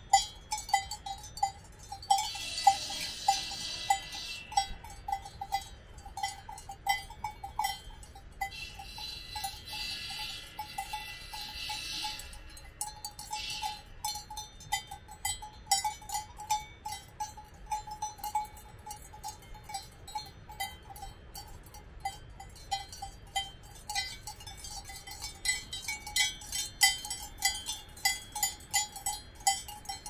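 Cowbells on grazing cows clanking irregularly and continuously as the animals move their heads while feeding, each clank ringing at a mid pitch. A few short spells of higher hiss come and go in the first half.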